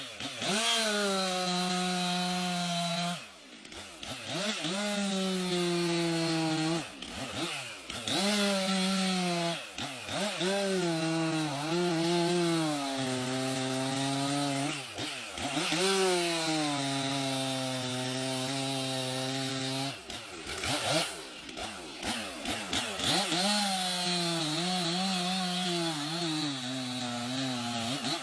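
Chainsaw cutting through a large tree, its engine running continuously at high revs. The pitch repeatedly sags as the chain bites into the wood and climbs again as it frees up, with a few brief drops in revs.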